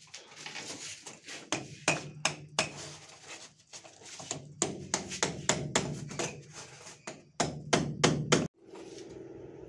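Hammer striking in an irregular run of sharp blows, ending in four hard strikes close together. A steady hum takes over abruptly near the end.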